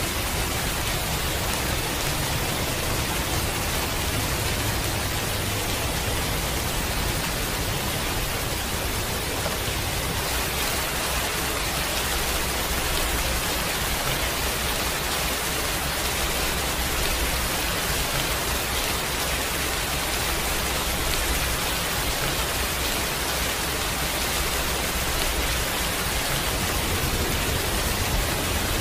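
Heavy rain falling: a steady, even hiss with a low rumble underneath.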